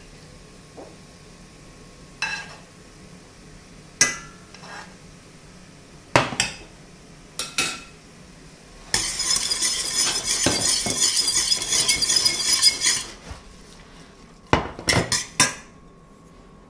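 A metal spoon clinking sharply against pans, a handful of single strikes, as cooked onions are spooned into a sauté pan of pici pasta. Mid-way comes about four seconds of dense, steady noise as the pasta is stirred and tossed in the hot pan, then a quick run of clinks near the end.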